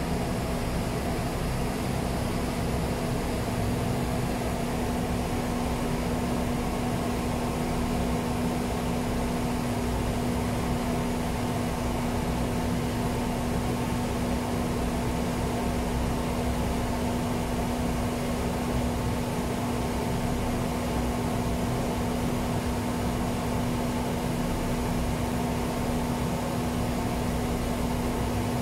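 Automated TIG welding rig with cold-wire feed and rotary table running during a weld: a steady machine hum with one constant tone.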